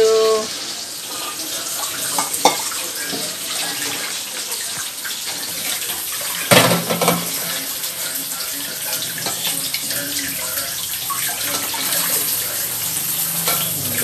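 Tap water running steadily into a stainless steel kitchen sink while dishes are washed, with a dish knocking sharply against the sink once about six and a half seconds in.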